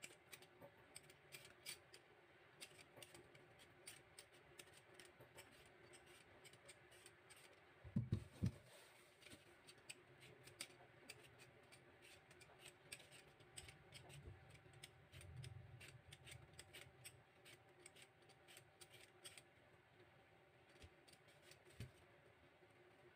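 Vegetable peeler scraping the skin off a chayote in quick, repeated strokes, faint and crisp. A few dull knocks come about eight seconds in.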